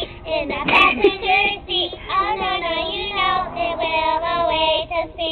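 Several women singing together in high, squeaky helium-altered voices. There is a short, loud noisy burst about a second in.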